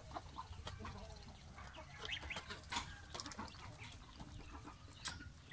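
Goslings peeping softly in short, scattered calls while they peck food from a plastic feeder, with small taps of bills on the plastic.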